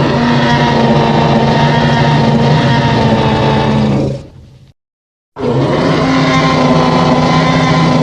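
Fanmade monster roar sound effect for the kaiju character Wonder Mothra: a long, steady, layered call of several held tones that fades out after about four seconds. After a short silence a second, matching call starts.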